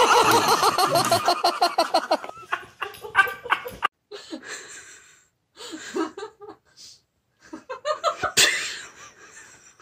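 A person laughing hard in rapid pulses that fade away over the first two seconds or so. After a short gap about four seconds in there are quieter, scattered vocal sounds, with one sharp loud burst near the end.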